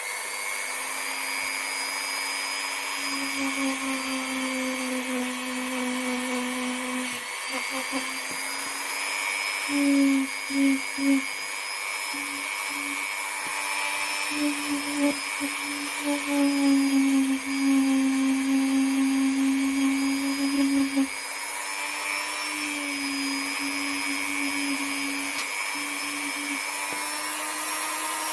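Dremel rotary tool spinning a small polishing bit against steel revolver parts, a steady high whine. It grows louder and wavers in pitch in stretches as the bit is pressed onto the part, most of all in the middle.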